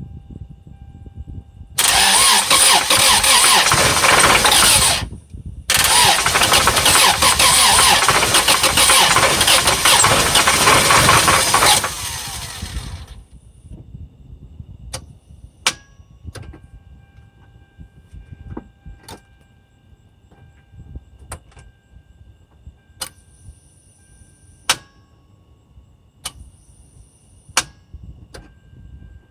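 A 1995 Toyota Celica ST's engine being cranked in two loud attempts, about three seconds and then about six seconds long, and not staying running; it dies away about halfway through, leaving a few scattered clicks.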